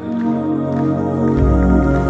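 Music of slow, held tones, with a deep low drone that comes in about one and a half seconds in.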